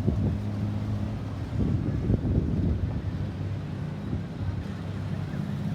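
Low, steady vehicle engine hum and road rumble, with wind buffeting the microphone.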